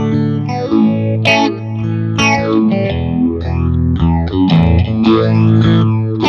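Electric guitar played through a Fender Tone Master Pro modeler with its phase shifter switched on, picking quick single-note runs between a few held notes.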